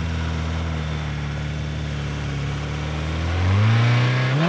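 Suzuki GSX-R1100 inline-four held at steady revs on the drag strip start line. About three and a half seconds in, the revs climb sharply and the engine gets louder as the bike launches.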